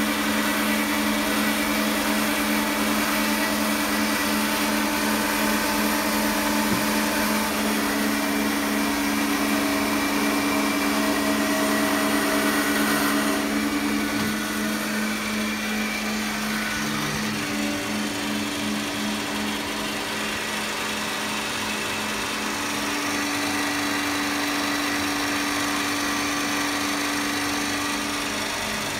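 Transformer oil filtration plant running, its electric dirty-oil, clean-oil and vacuum pumps switched on: a steady motor hum and whir with a hiss over it. It turns a little quieter and duller about halfway through.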